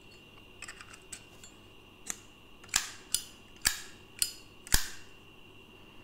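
Zippo lighter handled by hand: a few faint clicks, then six sharp metallic clacks about half a second apart, the louder ones ringing briefly, as the hinged lid is snapped open and shut.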